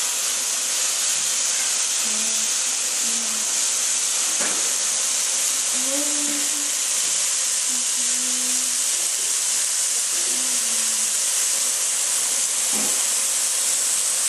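Sliced meat sizzling on a tabletop Korean barbecue grill pan: a steady hiss, with a couple of light clicks.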